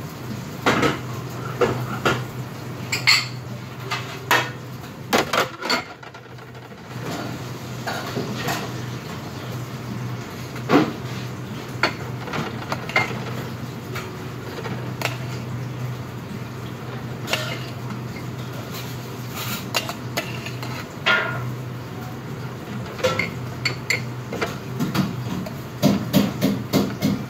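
Stainless-steel pots and pans clanking and knocking against each other and on a steel counter, in scattered knocks with a quick run of clinks near the end, over a steady low hum.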